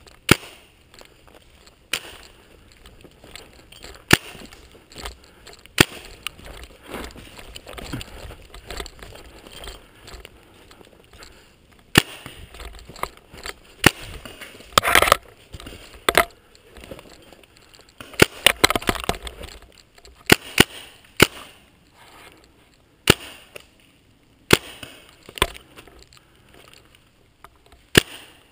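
Paintball markers firing: irregular single sharp pops, a dozen or more, some close together in the middle, with a few short noisy stretches in between.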